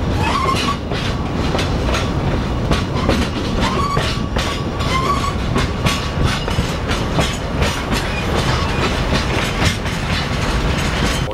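Tourist train running slowly into a station, heard from on board one of its covered wagons: a steady rattle and clatter of wheels and carriages on the track, with many sharp clicks. A thin squeal comes and goes about a second in and again around four to five seconds in.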